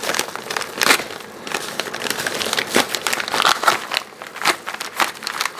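An envelope being torn open by hand and its contents handled: irregular crinkling and crackling of paper and packaging.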